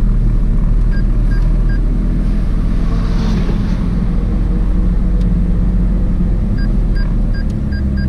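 McLaren 600LT's twin-turbo V8 running at low revs with a steady low rumble as the car rolls slowly, heard from inside the cabin. Short, evenly spaced electronic beeps sound three times about a second in and repeat again near the end.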